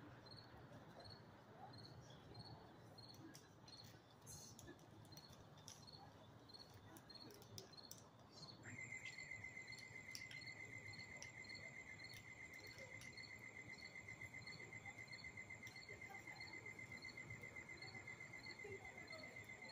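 Faint crickets chirping, a short high chirp repeating about twice a second. About nine seconds in, a second insect starts a steady, rapidly pulsing trill. Both sit over a low, even background rumble.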